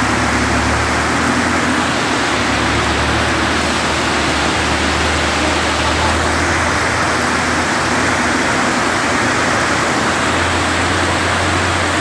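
Heavy downpour with rushing floodwater from an overflowing creek: a steady, dense hiss over a low rumble.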